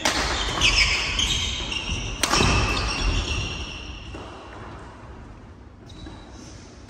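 Badminton rally in a reverberant sports hall: a sharp racket smack on the shuttlecock at the start and a louder one about two seconds in, with shoes squeaking on the wooden court. After about four seconds play stops and the hall goes quieter.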